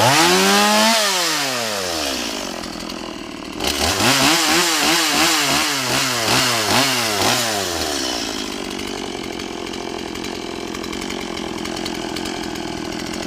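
Stihl two-stroke chainsaw engine revved once, then blipped up and down five or six times in quick succession, before settling into a steady idle about two-thirds of the way through. It is idling on its own after its idle speed screw was turned up; before that it bogged down and stalled.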